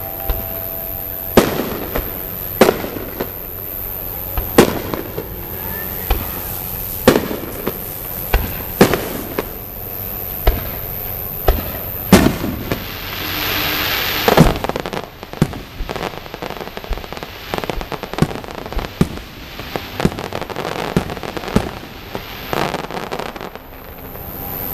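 Aerial firework shells bursting one after another, a sharp boom every second or two. About halfway through comes a rising hiss, then a run of smaller, fainter pops.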